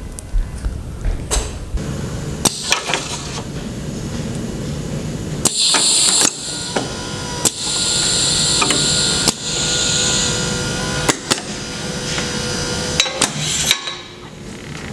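Festo modular sorting station running: a conveyor hums steadily while pneumatic cylinders clack sharply a dozen or so times, with stretches of compressed-air hiss about five seconds in and again from about seven to ten seconds in, as the diverters send a sorted block to its slide.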